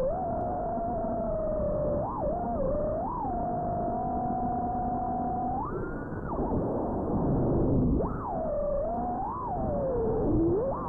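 FPV quadcopter's brushless motors whining, the pitch holding steady and then swooping up and down with the throttle several times, with a short high burst about six seconds in.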